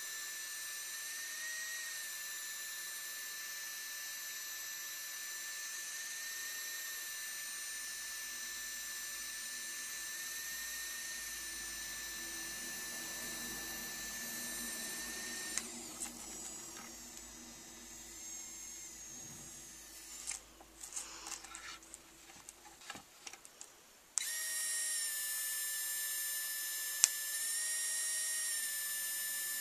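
3Doodler 3D pen running with a steady high-pitched motor whine while it extrudes plastic. About halfway through the whine drops out for several seconds, leaving faint handling noise and light clicks, then comes back louder.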